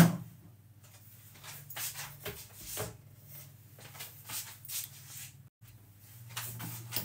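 Kitchen handling noises: a sharp knock at the very start, then scattered light clicks and knocks of containers and cupboards over a low steady hum.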